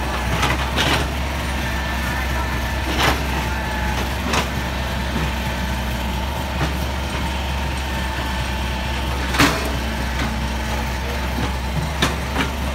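Heavy diesel engine idling steadily, with a few short, sharp knocks scattered through.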